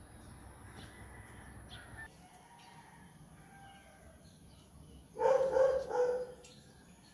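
A loud animal call about five seconds in, two pitched notes lasting about a second together.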